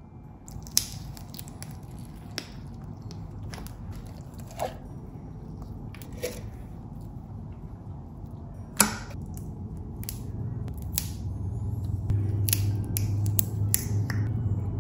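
Clear glitter slime mixed with jelly cubes being pressed and squeezed by hand: scattered wet clicks and small pops, the loudest about nine seconds in and several more close together near the end.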